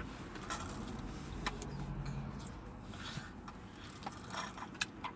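Steady low hum of a car heard from inside the cabin, with scattered small clicks and taps and one sharper click shortly before the end.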